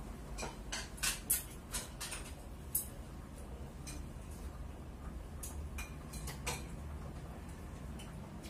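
Chopsticks clicking and clinking against porcelain bowls and dishes during a hot pot meal: a quick run of light, sharp clinks in the first three seconds and a few more a little past halfway, over a steady low hum.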